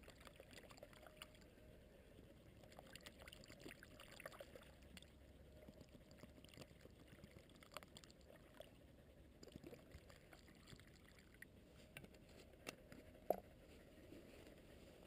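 Faint trickle of water poured from a plastic bottle into collapsible dog bowls, with a few small clicks and one sharper tick near the end.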